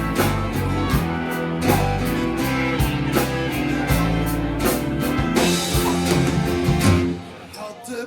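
Rock band playing a ballad live, an instrumental passage on guitar and drum kit with steady drum hits. About seven seconds in the band drops away to a much quieter moment.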